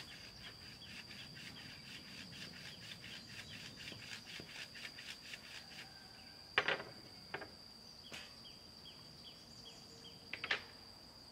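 Quick, even strokes of a hand tool rubbing or rasping on wood, about four or five a second, for roughly six seconds. A few sharp wooden knocks follow, the loudest near the end. Under it all is a steady, high-pitched insect drone.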